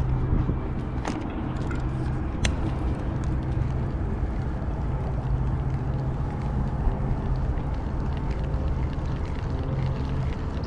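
Steady low engine hum with a few steady tones in it, a motor running continuously, and a couple of short knocks in the first few seconds.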